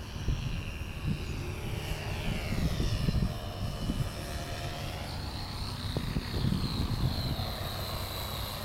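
Radio-controlled model airplane's motor whining high overhead, its pitch sweeping down as it passes about two to three seconds in, then holding steady as it flies low over the field.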